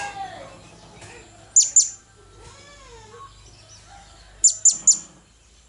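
Blue-crowned hanging parrot giving sharp, very high-pitched calls: a quick pair about a second and a half in, then a run of three near the end. Fainter, lower bird calls sound in the background.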